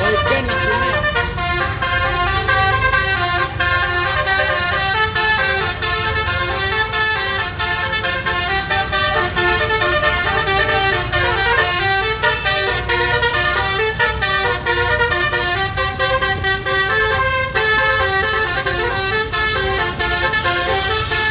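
Bus telolet basuri, a 12-trumpet set of musical air horns, playing a continuous melody note after note, with short clicks as the notes switch, over a low steady rumble.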